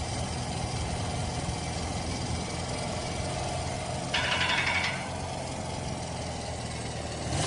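Motorcycle engine idling steadily. About four seconds in, a brief, louder, higher-pitched noise lasts under a second. The bike is being checked for an unwanted noise.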